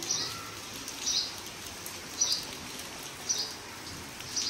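A bird repeating a short, high chirp about once a second, steady and evenly spaced, over a faint steady hiss of rain.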